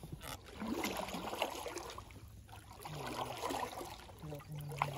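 Faint, irregular water splashing and sloshing around a small boat among lily pads.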